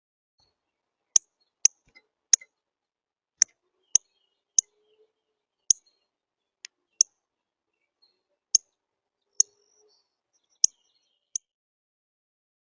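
About a dozen short, sharp, high clicks at irregular intervals, from a bird at a feeder.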